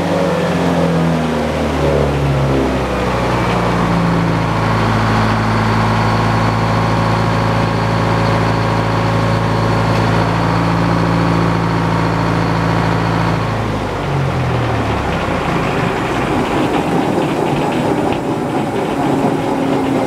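The power unit of a manual circular sawmill running with the big blade spinning and no log in the cut. Its pitch slides down over the first couple of seconds, holds steady, then drops away about fourteen seconds in as it slows, leaving a steady mechanical noise.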